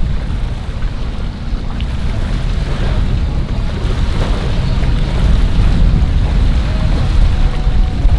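Wind rumbling and buffeting on the microphone, with boats on the water faintly beneath it.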